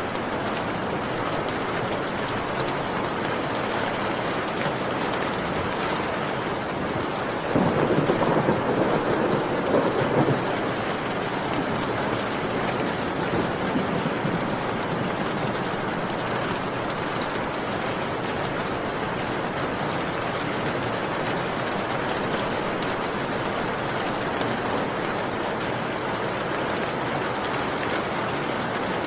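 Steady rain, with a roll of thunder that breaks in suddenly about seven seconds in and rumbles for some three seconds. A fainter rumble follows a few seconds later.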